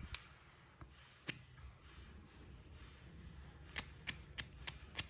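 Sharp metallic clicks of a metal lighter being handled: a couple in the first half, then five in quick succession near the end, about three a second.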